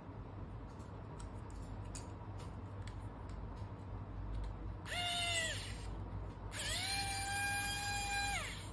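Small pen-style electric screwdriver running in two bursts, a short one about five seconds in and a longer one near the end, driving small M2 screws into a servo bracket. Each burst is a high steady whine that spins up and winds down in pitch as it stops. Light clicks from handling the plastic parts come before.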